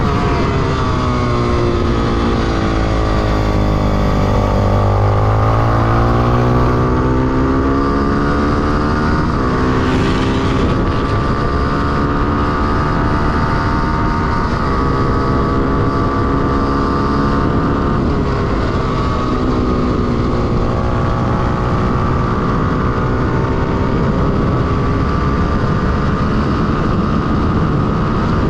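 Honda XR250 Tornado's 250 cc single-cylinder four-stroke engine running hard on track, its pitch dipping and climbing as it is accelerated and shifted up through the gears.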